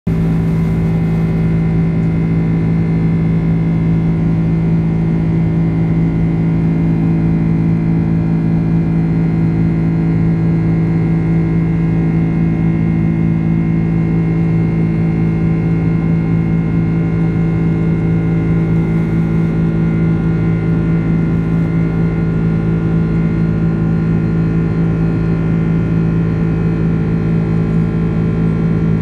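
Boeing 767 jet engine noise heard inside the passenger cabin during the climb after takeoff: a loud, steady drone with a strong low hum and fainter steady whining tones above it.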